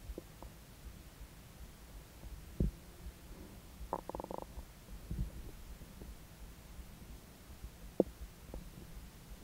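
Stomach and intestines gurgling while digesting a steak meal: a low thump a couple of seconds in, a short bubbling gurgle about four seconds in followed by a lower one, and a sharp click near the end.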